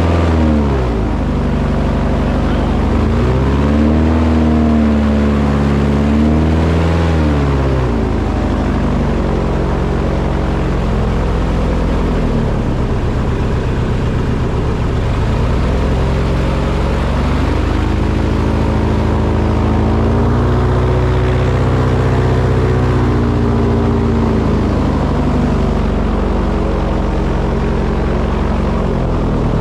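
Engine running loudly and steadily, its pitch rising and falling as it is revved up and down near the start, again from about three to seven seconds in, and once more from about sixteen to twenty-four seconds in.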